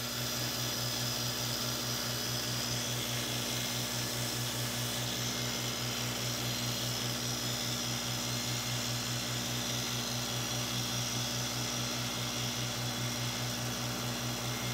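Electric belt grinder running steadily: a constant motor hum under the even hiss of the moving sanding belt.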